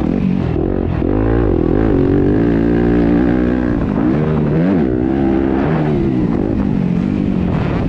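Yamaha 250F motocross bike's four-stroke single-cylinder engine being ridden hard, its pitch rising and falling again and again as the throttle is opened and shut, with a quick drop and climb about halfway through.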